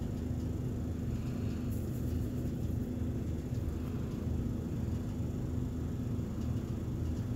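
Steady low rumble with a constant mechanical hum underneath, unchanging throughout, with a few faint ticks about two seconds in.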